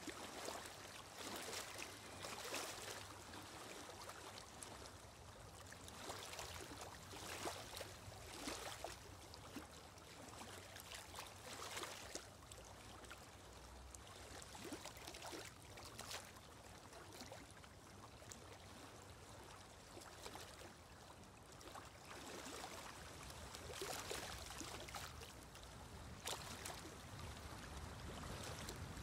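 Quiet running water: a steady wash with brief, irregular splashes.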